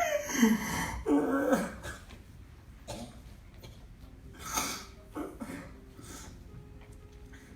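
A man crying out loud in grief: two loud, drawn-out sobbing cries falling in pitch in the first two seconds, then shorter, quieter sobs and gasps. Soft sustained music tones come in near the end.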